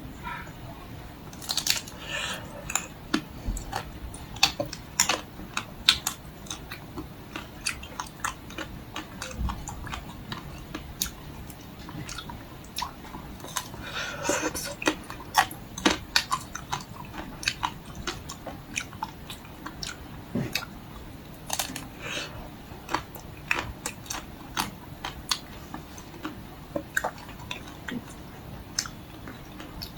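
Close-up biting and chewing of a crunchy chocolate-shelled Magnum ice cream bar. Sharp crackles and clicks run throughout as the shell breaks, with louder bites about two seconds in and again around fifteen seconds.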